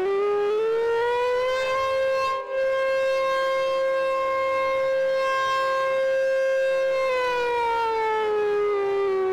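Super Sirex outdoor warning siren sounding the attack signal: its pitch rises for about two seconds, holds steady, then falls from about seven seconds in. A brief dropout about two and a half seconds in.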